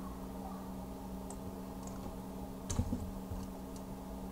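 A few faint computer keyboard and mouse clicks, scattered, with a short cluster near the middle, over a steady low hum.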